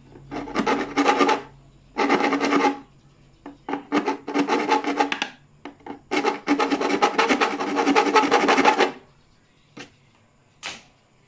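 Steel file rasping back and forth in the hole in a plastic car side-mirror housing, enlarging the hole to fit a puddle lamp. The filing comes in four bouts of quick strokes, the last about three seconds long, then stops, followed by two brief clicks near the end.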